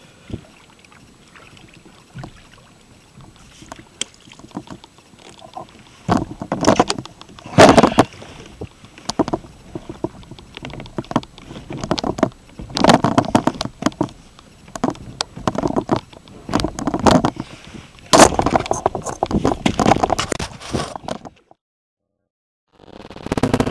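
Water splashing and sloshing at the side of a kayak as a lingcod is held and worked at the surface, in irregular loud bursts, with the sound cutting out abruptly near the end.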